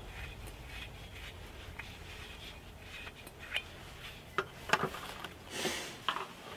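Quiet handling of a small green propane cylinder, picked up, turned over and set back down on a camp table, with a few sharp clicks and knocks in the last two seconds.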